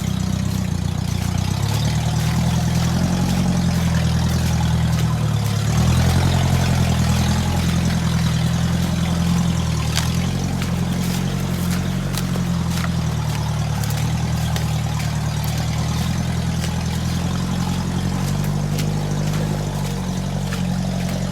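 UAZ off-roader's engine running with its muffler removed while driving, the engine note shifting up and down and rising about six seconds in. A few sharp knocks are heard along the way.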